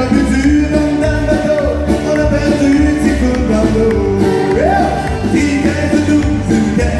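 Live country music: a man singing with strummed acoustic guitars and a fiddle, over a steady low beat.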